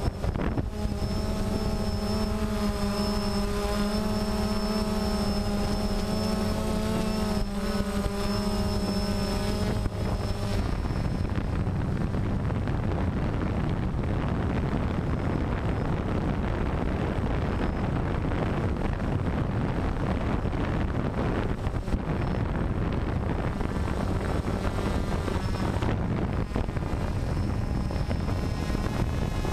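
DJI Phantom quadcopter's electric motors and propellers whirring steadily, heard from the camera on the drone itself, with air rushing past the microphone. A clear steady hum of several pitches lasts about the first ten seconds, then gives way mostly to a rushing noise.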